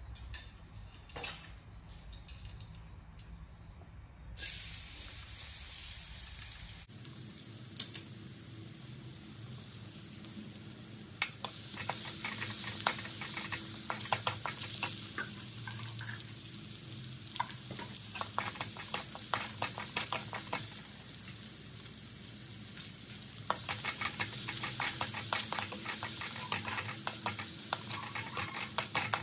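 Chopped garlic sizzling in hot oil in a metal wok, stirred with a wooden spatula that scrapes and knocks against the pan. After a quieter start the sizzle sets in about seven seconds in and grows louder a few seconds later.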